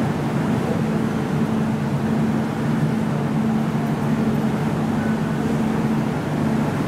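Steady rumble with a low, even hum inside a carriage of an MTR Tung Chung line K-stock electric train.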